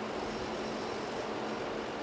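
Fendt tractor's diesel engine running steadily while its hydraulics tip a trailer load of chopped grass.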